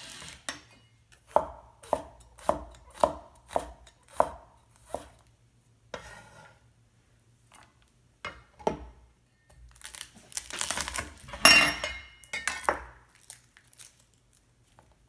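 Knife chopping garlic on a cutting board: a run of sharp knocks about two a second, a couple of single strikes, then a busier spell of rapid chopping about two-thirds of the way through.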